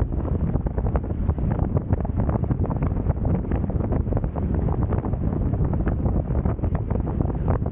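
Strong wind buffeting the camera's microphone on a sailing beach catamaran, a steady dense rumble crackling with constant short gusts, with water rushing past the hulls underneath.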